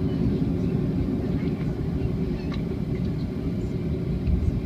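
Cabin noise inside a Boeing 737-300 airliner as it taxis slowly on the ground with its CFM56-3 turbofan engines at low power: a steady low rumble, with a few faint clicks and rattles.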